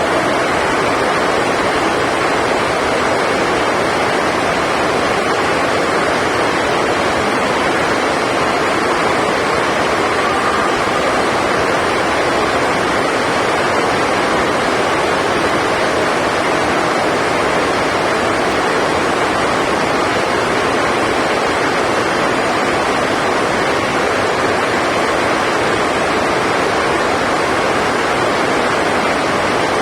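Heavy rain on the roof of a sports hall, a loud, even hiss that does not let up.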